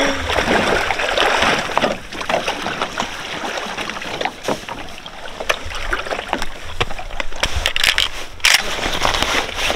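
Water splashing and sloshing around a boat, with many sharp knocks and clicks from gear being handled.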